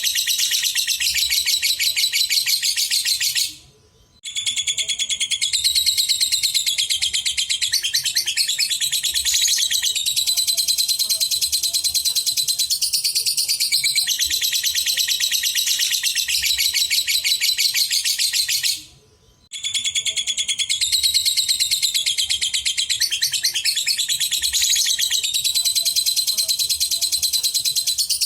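Lovebird singing a long, rapid, high chattering trill that runs almost without a break. It stops twice, for about half a second each time: once about four seconds in and again a little after the middle.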